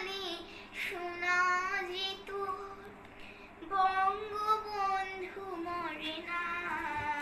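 A young girl singing a Bengali song without accompaniment, holding long notes that slide between pitches, with short breaths between phrases.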